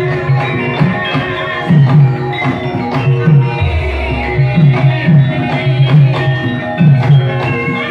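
Javanese gamelan ensemble playing: a kendang hand drum beats a quick repeating pattern under steady metallophone notes. A deep low tone comes in about three and a half seconds in and holds.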